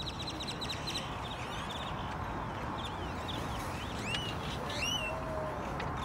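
A large flock of birds calling as it flies: a din of chirps, rapid clicking ticks and several rising whistles, over a steady low background rumble.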